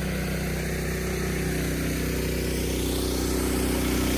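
Frontier OS27 sawmill's small gasoline engine running at a steady speed.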